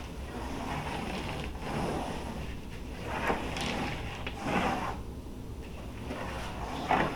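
Small toy car rolled back and forth across a large sheet of paper through wet paint, its wheels scraping in a run of short irregular swishes, the loudest near the end.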